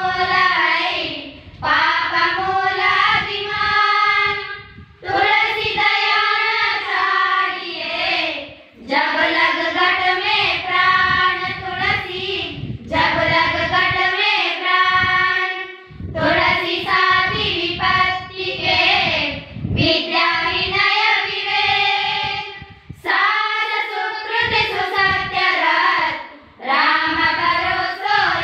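A group of teenage schoolgirls singing a doha (Hindi couplet) together in unison, without instruments. The singing comes in phrases a few seconds long, with a brief pause for breath between each.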